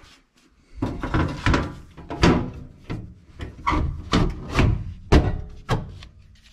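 Sheet-metal lower access panel of a gas furnace being worked back into place on the cabinet: a run of scrapes and sharp knocks, starting about a second in.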